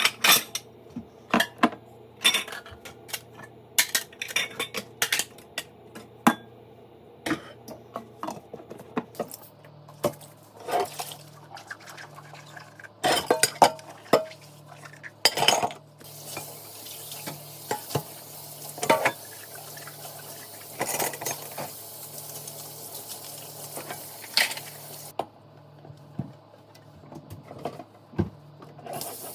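Dishes and cutlery clinking and clattering as they are handled, sharp knocks coming in quick irregular runs. About halfway through, a tap runs steadily for several seconds with more clinks over it, stops, and starts again near the end.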